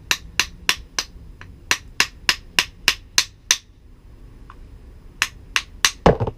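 A hammer tapping a screwdriver used as a drift to drive a part out of a Subaru Impreza power steering pump. There are about a dozen quick, sharp taps, a pause, then a few more taps and one heavier knock near the end.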